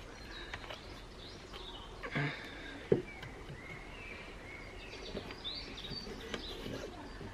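Birds chirping and whistling in short phrases over a steady outdoor background, with a brief rustle and a sharp click near the middle from hands handling paracord and a wooden bow drill spindle.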